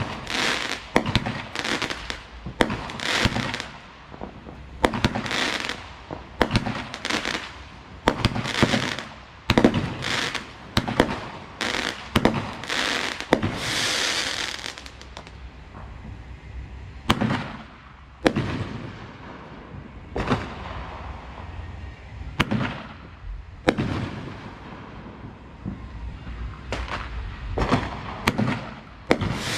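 A consumer fireworks finale: aerial shells from firework cakes and tubes launching and bursting in quick succession, sharp bangs several a second with bursts of crackle. About halfway through the firing thins out to single bangs a second or two apart.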